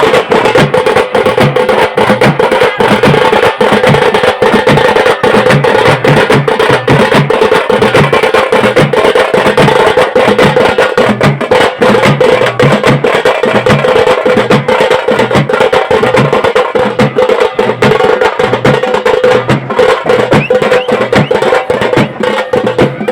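Loud, fast percussion music: a dense clatter of drumbeats over a low thud about twice a second, with a steady held tone above.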